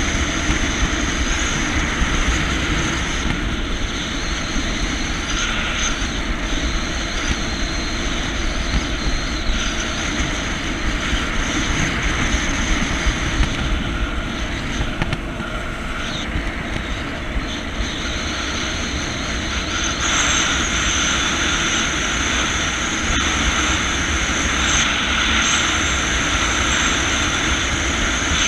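Jet ski engine running steadily at cruising speed, with water rushing past the hull. It eases off a little in the middle and picks up again about two-thirds of the way through.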